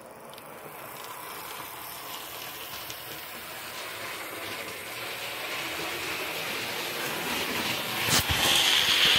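Hornby Class 37 model locomotive with its ring-field motor running along the track, a whirring hiss of motor and wheels that grows steadily louder. There is a click about eight seconds in, after which it is loudest.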